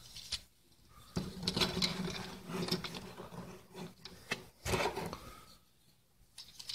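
Hard plastic parts of a Transformers Siege Cog action figure clicking, scraping and snapping as hands handle the figure and peg pieces together. There is an irregular run of clicks, with the sharpest snap past the middle.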